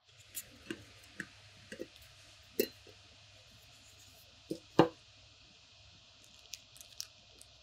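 Aluminium cake pan and plate handled as a cake is turned out: scattered light clicks and knocks, with two louder knocks near five seconds in, over a steady background hiss.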